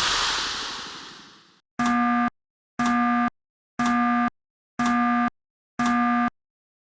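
A noisy crash fades out over about a second and a half. Then come five evenly spaced electronic beeps, one a second, each about half a second long on the same steady pitch, like a telephone busy signal.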